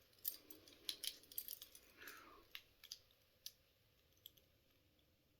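Faint small metallic clicks and taps of a handcuff key, hung on a thread from a fire brigade drop key, knocking against handcuffs as it is worked toward the keyhole. They come irregularly for about three and a half seconds, then stop.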